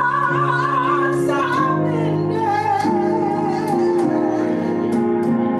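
Praise team singing a slow worship song with instrumental accompaniment. The voices hold long notes with a wavering vibrato, and the melody steps down to a lower held note about two seconds in.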